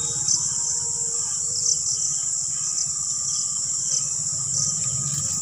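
Crickets trilling steadily at a high pitch, with a slightly louder pulse every second or so, over a low rumble.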